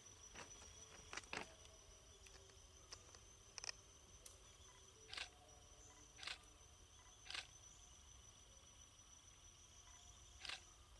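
Quiet evening ambience: a faint, steady, high-pitched insect drone, broken by about eight sharp clicks and taps spaced a second or more apart.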